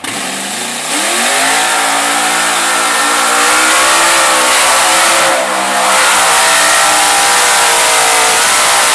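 Engine of a tractor-tire class mud truck revving hard as the truck powers through deep mud. The revs climb steeply over the first second and a half, stay high, drop briefly about five and a half seconds in, then climb again.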